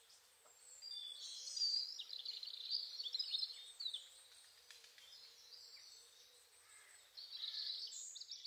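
Several birds chirping and calling at once, with short quick notes that thicken about a second in and again near the end, over a faint low call repeated steadily underneath.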